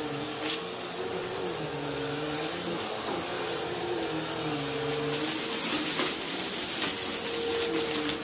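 Bissell CleanView bagless upright vacuum running over a plush rug, its motor whine dipping and rising in pitch as it is pushed and pulled. Debris crackles up into the canister, loudest about five to seven seconds in.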